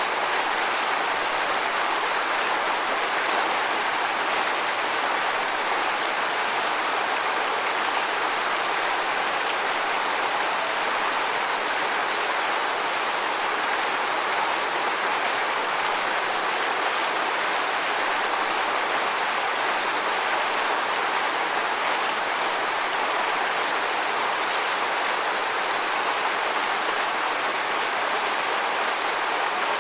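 Waterfall: a steady, even rush of falling water, with no change in level.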